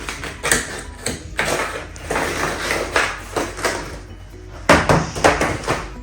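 Background music, with irregular rustling and crackling bursts of packaging and paper being handled as monitor accessories are taken out of the box.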